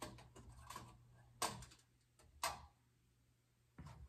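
Faint scattered handling clicks and taps, with two sharper clicks about a second apart, over a low steady hum.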